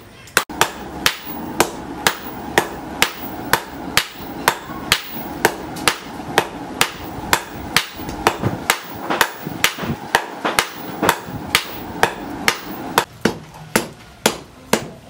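Hand hammer forging red-hot leaf-spring steel on a cylindrical steel anvil, metal striking metal in an even rhythm of about two and a half blows a second.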